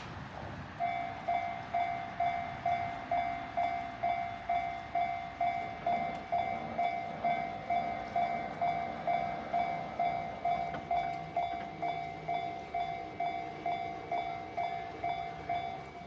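Electronic warning bell of a Japanese railway level crossing, the JR standard tone, starting about a second in and dinging steadily about twice a second: the crossing has activated for an approaching train.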